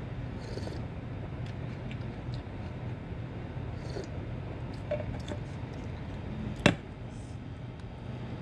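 Steady low room hum with a few faint ticks, and one sharp knock near the end as a stainless steel mug is set down on the desk.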